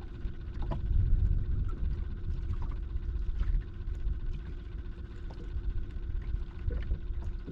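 Wind rumbling on the microphone over choppy water around a small fishing boat, with water lapping at the hull. A faint steady hum runs underneath, and the rumble swells about a second in.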